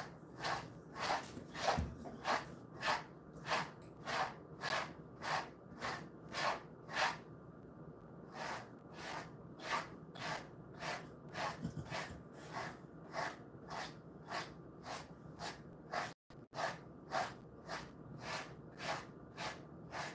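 Grooming brush swept through a Jindo-mix dog's thick coat in steady strokes, a swish about one and a half times a second, with a short pause about eight seconds in.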